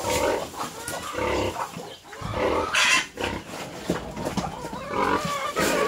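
Several large pigs grunting in a string of short, rough calls.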